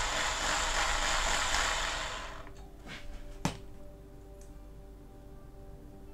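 Power drill boring into the rivet post of a zinc-alloy Matchbox casting, drilling out the rivet to separate the body from the baseplate; the loud grinding whir stops about two seconds in. A sharp click follows about three and a half seconds in as the freed metal parts are handled.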